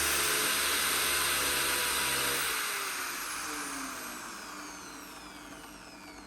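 Small electric motor of a homemade power tool running with a steady whine, switched off about two and a half seconds in and winding down, its pitch falling as it fades.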